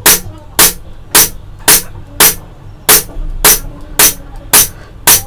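Tanfoglio Witness 1911 CO2 blowback BB pistol firing about ten semi-auto shots in a steady rhythm, a little under two a second; each shot is a sharp crack of CO2 with the slide cycling back.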